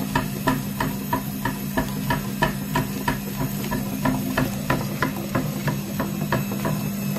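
Steady mechanical hum with a regular clicking, about four clicks a second.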